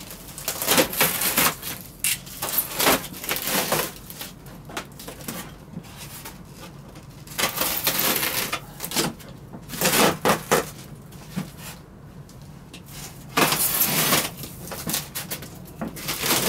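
A grey board being pulled and worked free of a taped polystyrene and fibreglass frame: irregular bursts of scraping, rubbing and rustling, some brief and a few lasting about a second.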